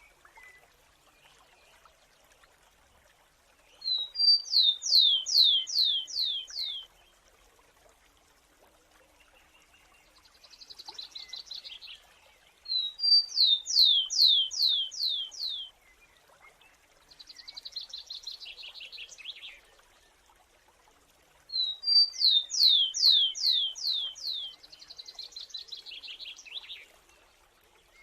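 A sparrow singing a repeated song three times, about nine seconds apart. Each song is two short high notes followed by a quick run of about six loud, sharply falling whistles. Between the songs a fainter buzzy trill sounds three times.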